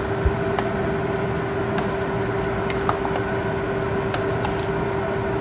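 A pot of soup boiling in a steel pot, stirred with a ladle that clicks lightly against the pot a few times, over a steady mechanical hum.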